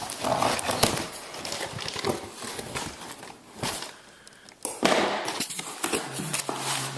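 Cardboard shipping box and its contents being handled by hand: irregular knocks, clicks and paper rustling, with the loudest rustle about five seconds in.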